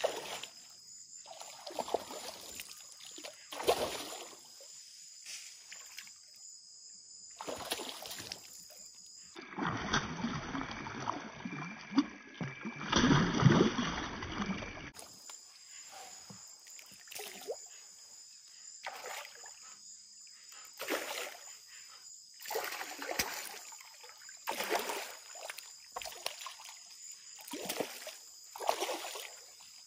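Kayak paddle strokes dipping and splashing in the river every second or two, over a steady high-pitched buzz of insects. For several seconds in the middle a louder, denser splashing and sloshing takes over.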